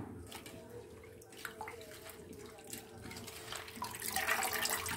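Water heating in an open aluminium pot on a gas stove, with faint bubbling and small clicks, and a louder rustle about four seconds in.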